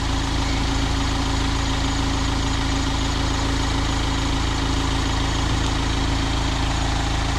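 Mahindra Thar's engine idling steadily.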